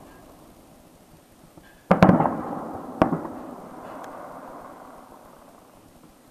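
Aerial firework shells bursting: two sharp bangs close together about two seconds in and a third a second later, each followed by a long, echoing rumble that slowly dies away.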